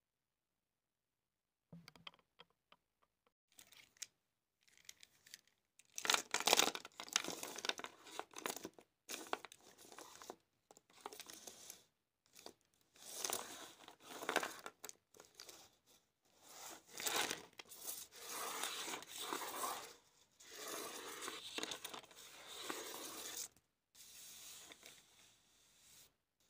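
Paper rustling and crinkling in irregular bursts as the drawing sheet and a bundle of felt-tip markers are handled, starting about two seconds in and loudest around six seconds in.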